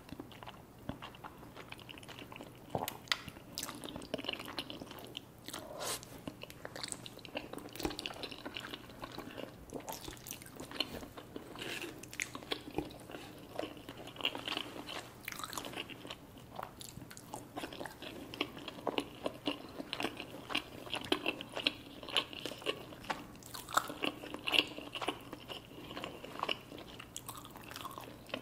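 A person biting and chewing crunchy chicken wings, with many irregular crunches and crackles throughout.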